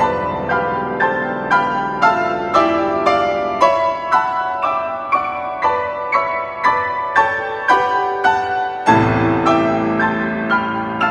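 Bösendorfer grand piano played solo: a steady pulse of notes about two a second in the middle and upper register. The bass falls away for a few seconds in the middle, and a deep bass chord enters about nine seconds in.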